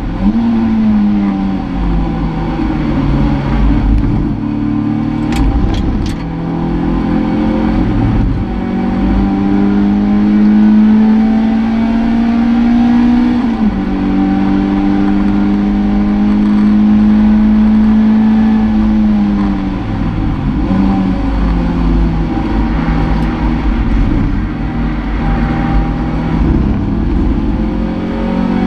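Toyota MR2 race car's engine, heard from inside the cabin, running hard at racing speed. The revs hold high and steady, drop suddenly about halfway through, then fall away about two-thirds through and climb again.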